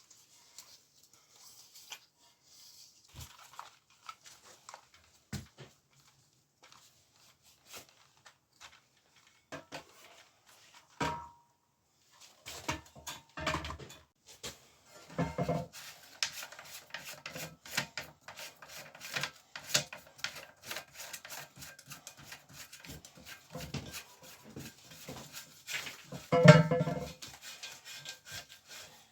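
Toilet cistern fittings being handled and fitted by hand: scattered clicks, knocks and rubbing, getting busier about halfway through, with one louder knock near the end.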